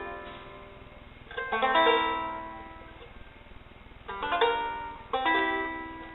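Homemade five-string mountain banjeaurine, tuned C G C E G, strummed three times: each chord is rolled quickly across the strings and left to ring out and fade.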